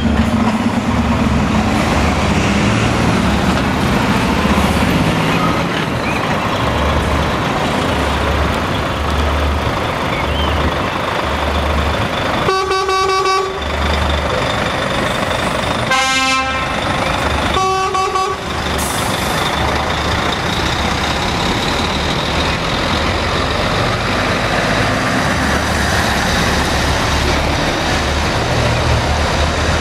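Heavy truck diesel engines running as tractor units pull away. In the middle a truck horn sounds three times: one longer blast, then two shorter blasts a few seconds later.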